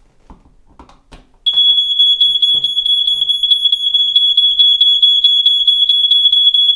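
Household smoke alarm sounding its test tone after its test button is pressed. A few soft clicks come first, then about a second and a half in a loud, high-pitched tone starts suddenly and holds steady with a fast flutter.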